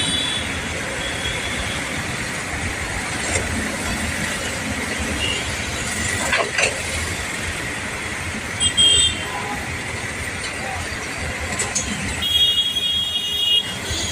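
Steady road-traffic noise with a vehicle horn tooting briefly about nine seconds in and sounding longer, for over a second, near the end.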